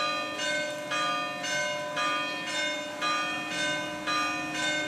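Church bells ringing, about two strikes a second at changing pitches, each note ringing on into the next.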